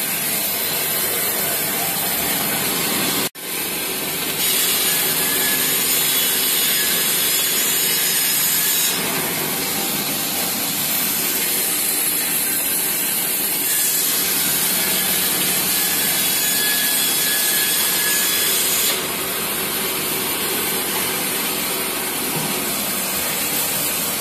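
Industrial metal shredder running steadily, its toothed blades cutting up thin perforated steel strips as they are fed in. The noise breaks off for a moment about three seconds in.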